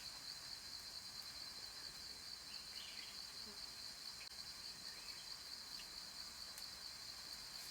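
Cicadas droning in a steady, high-pitched chorus, with a few faint short chirps over it.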